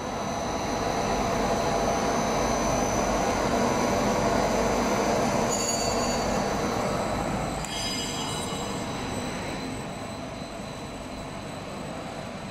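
Mesh-belt conveyor dryer of a corn-straw production line running: steady mechanical noise with a few faint, steady high whines, growing quieter from about eight seconds in.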